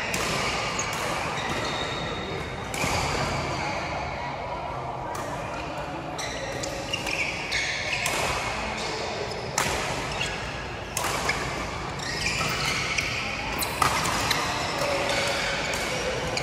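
Badminton play in an indoor hall: rackets hitting the shuttlecock in sharp strikes at irregular intervals, with a continuous bed of court noise.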